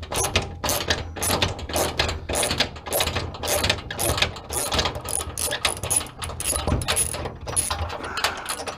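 Ratchet wrench being cranked back and forth to loosen a bolt, its pawl giving a rapid run of sharp clicks, several a second, without a break.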